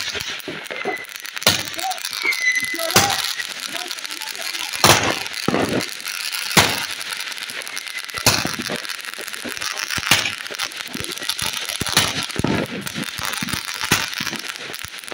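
Sony Fireworks 'Raiders of the Last Ark' multi-shot firework firing spark-trailed shots one after another: eight sharp cracks, about one every two seconds, over a steady hissing crackle.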